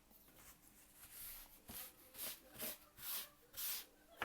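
A run of short, hissy scraping strokes on the phone, about two a second, as leftover back glass and debris are worked off its frame.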